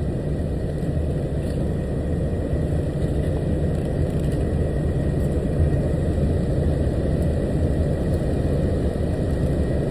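Steady low rumble of an idling truck engine, with a faint high whine held throughout.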